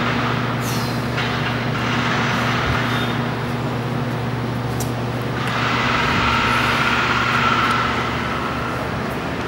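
Steady low mechanical hum of an outdoor urban background, swelling louder for a couple of seconds past the middle before settling back.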